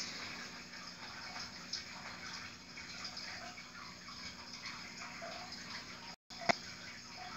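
Faint steady hiss with scattered small crackles and a low hum, cut by a brief dropout and a sharp click about six seconds in.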